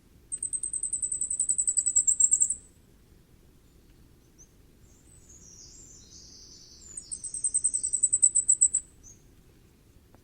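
Common firecrest singing twice: each song is a rapid run of very high, thin notes that grows louder as it goes and lasts about two seconds. A fainter scratchy sound comes between the two songs.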